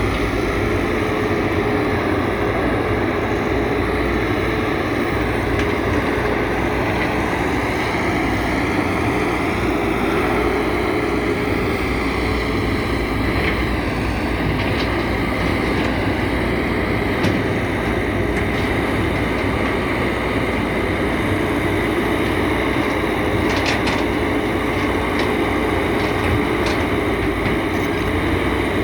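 Excavator's diesel engine running steadily, with a faint whine that wavers slightly in pitch.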